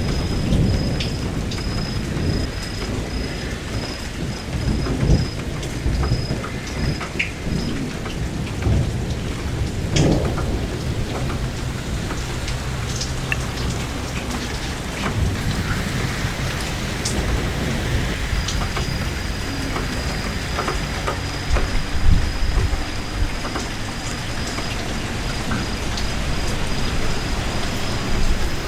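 Steady rain falling and pattering on surfaces, with thunder rumbling low and rolling again and again through it.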